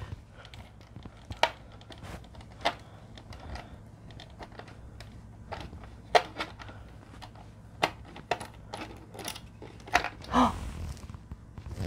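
Hand screwdriver taking small screws out of an opened computer keyboard, with scattered small clicks and taps of the tool, screws and casing.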